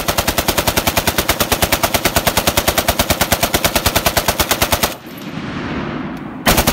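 Browning M1919A4 belt-fed machine gun firing full-auto: one long, even burst of about five seconds, a short pause filled with rolling echo, then a second burst beginning near the end.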